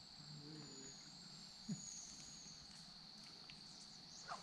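Near silence: faint outdoor ambience with a steady high hum and a few faint, high whistling notes, like distant birds.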